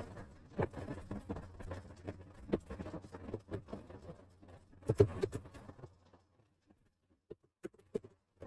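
Computer keyboard keys and mouse buttons clicking irregularly, several taps a second, over a faint steady hum. About six seconds in the hum stops and only a few scattered clicks remain.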